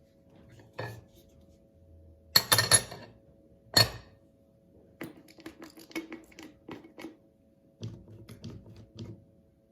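A spoon clinking and scraping against a bowl and jar while cream is scooped into a scrub mixture: a few sharp clinks, loudest between about two and four seconds in, then a run of lighter taps and scrapes.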